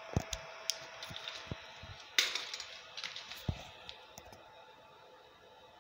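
Stepper motors of a CNC two-axis rotary table: a steady whine that fades out just after the start, leaving a faint hum. Over it come scattered sharp clicks and knocks, the loudest about two seconds in.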